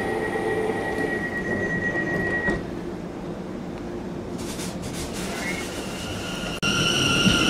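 Train running at a station with a steady high whine over its rumble, the whine dropping away about two and a half seconds in. Near the end the sound changes abruptly to another train with a louder high whine.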